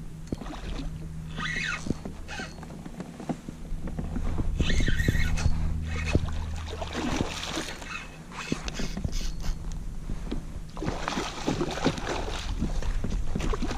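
A hooked redfish (red drum) thrashing and splashing at the water's surface while it is fought on rod and reel, with scattered clicks and short splashy bursts; the biggest splashing comes about eleven seconds in.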